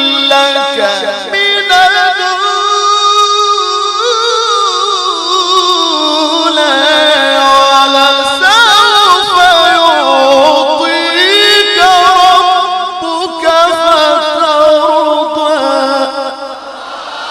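Solo voice reciting the Quran in the ornamented, melodic mujawwad style: long drawn-out melismatic phrases with heavy vibrato, held notes and sweeping rises and falls in pitch, easing off near the end.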